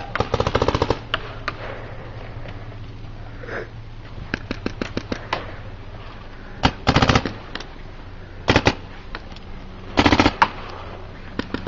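Paintball markers firing in rapid strings of shots: a burst about a second long at the start, another around seven seconds in, and shorter bursts at about eight and a half and ten seconds, with single shots scattered between.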